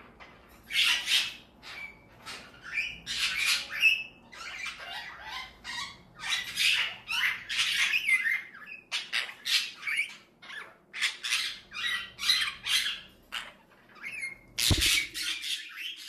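Pet parrots, budgerigars and cockatiels, squawking and chattering in a rapid run of short harsh calls, one or two a second. A sharp knock comes about a second before the end.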